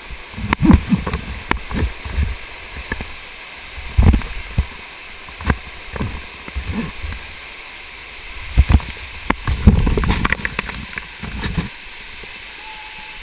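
Waterfall pouring close by as a steady rush, with many irregular loud thumps close to the microphone; the thumps stop near the end.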